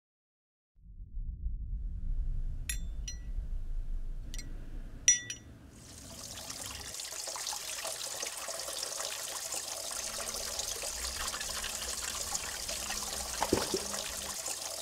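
A low rumble with a few short, sharp clicks, then steady water noise of a swimming pool lapping and trickling. Near the end a brief splash.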